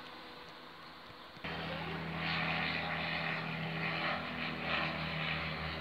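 Propeller aircraft flying over, a steady engine drone that comes in abruptly about a second and a half in, after faint hiss.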